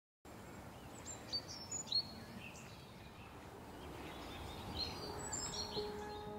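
Outdoor ambience: a steady low hiss with scattered short, sharp bird chirps in two clusters. Soft sustained music notes come in near the end.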